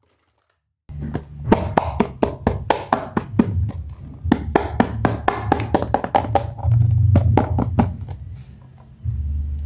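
Hands handling plastic toy makeup pieces and packaging: a quick, irregular run of small clicks and taps that begins about a second in, after a moment of dead silence, and thins out near the end.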